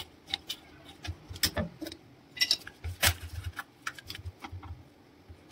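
A metal paint tin's lid being pried open with a screwdriver: a run of small metallic clicks and knocks, the sharpest about three seconds in.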